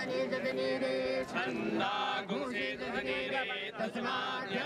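Several men chanting Hindu mantras together, holding long sung notes with their voices overlapping.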